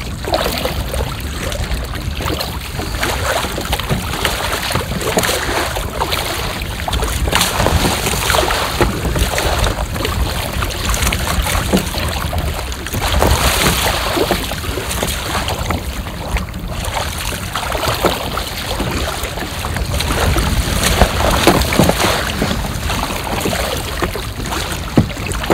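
Wind buffeting the microphone over choppy water, with water slapping against a kayak and irregular splashes from paddle strokes.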